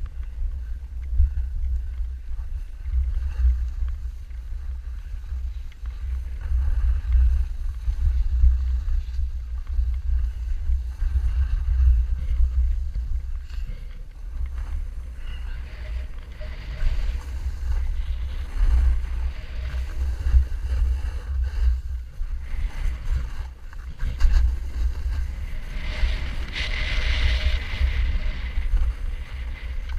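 Wind buffeting an action camera's microphone during a snowboard descent, a gusty low rumble, with the hiss of the board sliding and scraping over packed snow swelling up at times, loudest near the end.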